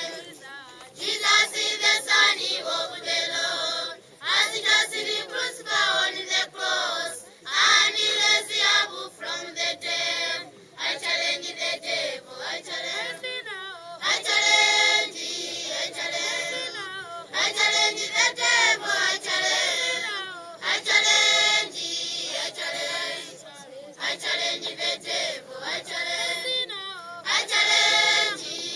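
A group of children singing together as a choir, in short phrases with brief breaks between them.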